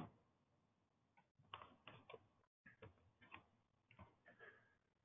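Near silence, with a short click at the start and a scatter of faint ticks and clicks over the next few seconds.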